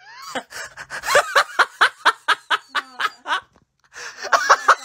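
A person laughing in quick, rhythmic bursts, in two runs with a short pause between them.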